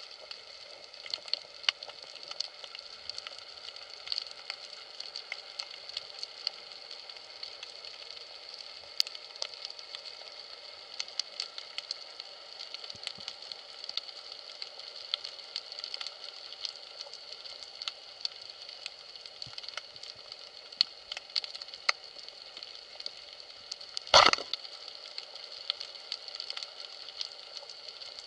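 Underwater ambience: a steady hiss with a constant crackle of sharp clicks, and one louder knock near the end.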